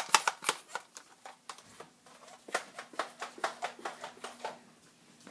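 Two quick runs of sharp clicks, about four a second: one that stops about half a second in, and another from about two and a half to four and a half seconds in.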